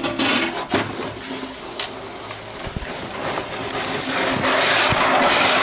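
A small red wheeled cart rattling and scraping over icy ground, with a few sharp knocks early on and two dull thuds in the middle. The scraping noise grows louder in the last second or so.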